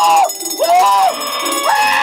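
Chaotic improvised band playing, its loudest part a string of high, held wailing notes: three in two seconds, each bending up at the start and dropping away at the end, over a clatter of percussion and toys.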